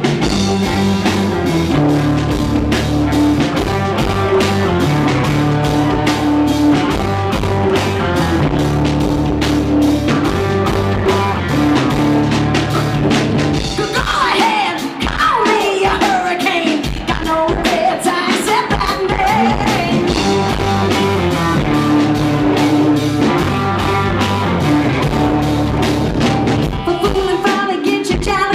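Live rock band playing a song, loud and steady throughout, with a melody line that slides up and down in pitch about halfway through.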